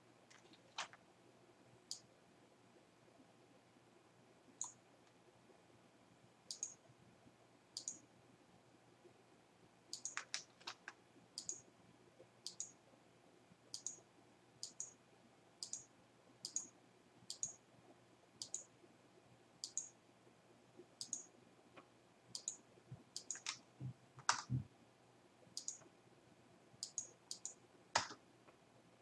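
Computer mouse clicking: short, sharp single clicks and a few quick double clicks at irregular intervals of about one to two seconds, with a soft low knock a few seconds before the end.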